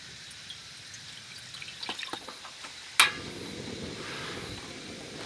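Small clicks and taps, then a sharp click about three seconds in, after which a steady rushing hiss carries on: a portable camping gas stove lit under the hotpot.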